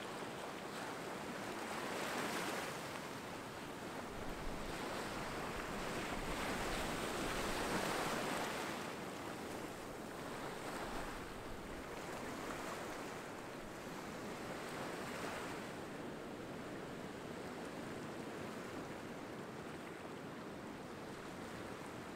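Small surf washing up a sandy beach among rocks, each wave swelling and fading in a steady wash. The biggest surges come early, the loudest about eight seconds in, and the water settles to a softer wash later on.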